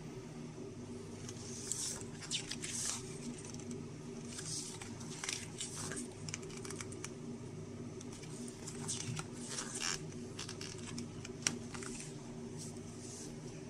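Paper pages of a small instruction booklet rustling and flicking as they are held and turned by hand, in short irregular swishes. A steady low hum runs underneath.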